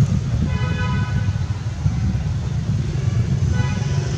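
Two short toots of a distant vehicle horn, about three seconds apart, over a steady low rumble.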